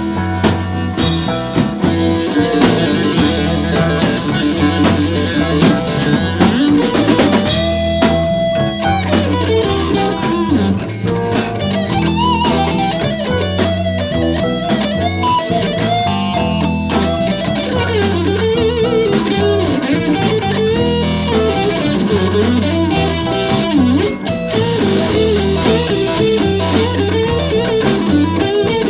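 Blues band playing an instrumental passage: a guitar lead with bent, sliding notes over a repeating bass line and drum kit.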